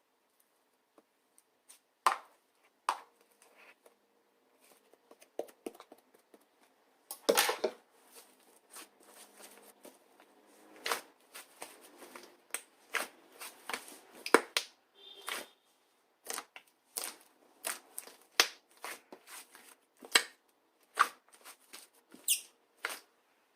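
Scattered sharp clicks and taps with brief rustles of small objects being handled by hand, loudest about seven seconds in.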